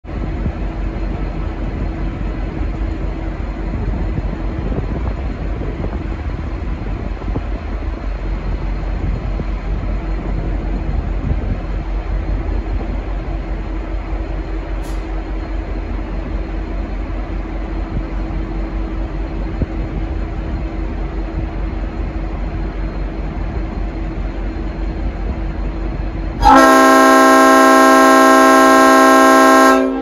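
Diesel locomotive running steadily with a low rumble. About 26 seconds in, a loud dubbed-in Leslie RS5T five-chime air horn sounds one long chord for about three and a half seconds and cuts off sharply.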